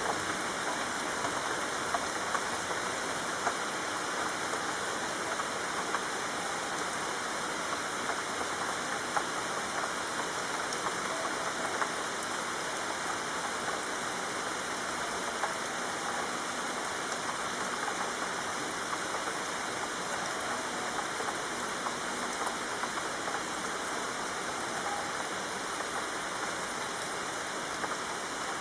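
Steady rain falling on a city street, an even hiss with scattered louder drop ticks.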